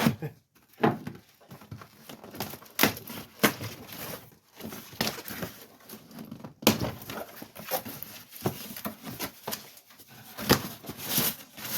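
A drill press's shipping box being opened and its packaging handled: irregular rustling and crinkling with scattered knocks and thuds as parts are moved about.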